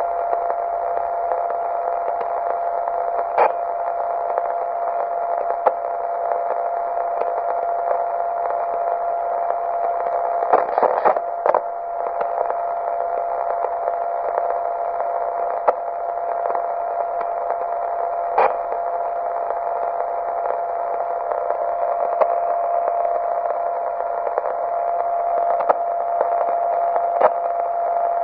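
Steady static hiss squeezed into a narrow middle band, with a constant steady tone running through it. Sharp single clicks come every few seconds, and there is a short cluster of crackles about ten to eleven seconds in.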